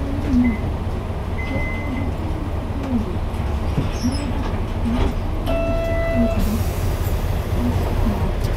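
Isuzu Cubic KC-LV280N city bus with a V8 engine, heard from inside the cabin while under way: a steady low engine and road rumble. Just past halfway a short, steady beep sounds for under a second.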